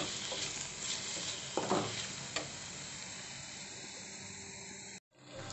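Chopped onions, tomatoes and coriander sizzling in oil in a stainless steel pan, with a spatula scraping through them a few times in the first couple of seconds. The sound cuts out abruptly near the end.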